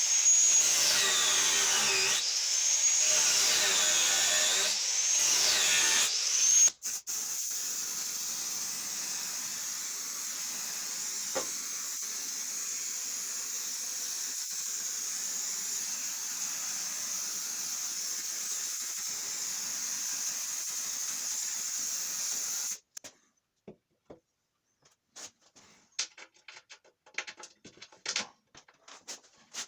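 Handheld power tool motor running. For the first six seconds or so its high whine dips and rises again and again as it works under load. It then runs steadily until it cuts off abruptly near the end, followed by light clicks and scraping.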